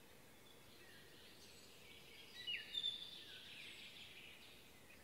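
Wild birds calling: a few short, high chirps and whistles, louder from about halfway through, over a faint steady hiss.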